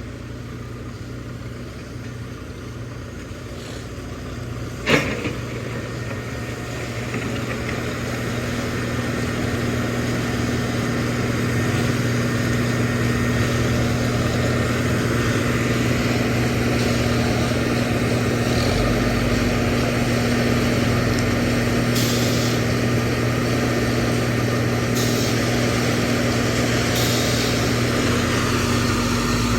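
Backhoe loader's diesel engine running steadily, growing louder several seconds in, with a single sharp knock about five seconds in.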